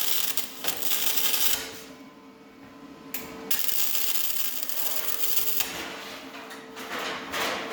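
Welding arc crackling in short bursts as a patch panel is welded into a car body, with pauses between the welds. A steady faint hum runs underneath.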